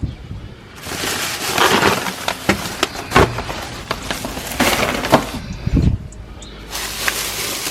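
Grocery bags rustling and being moved about, with crackling and several sharp knocks.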